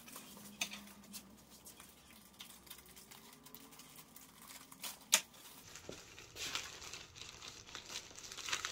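Plastic bags and paper packaging rustling and crinkling as they are handled and unpacked, with a single sharp click about five seconds in.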